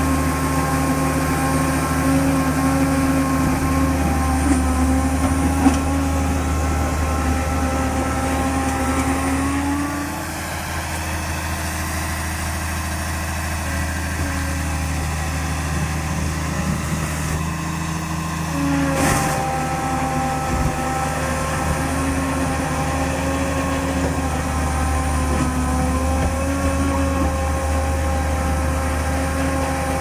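Diesel engine of a Liebherr 734 crawler bulldozer running steadily while the machine is bogged in mud. Its note drops about a third of the way in and picks back up a little past halfway.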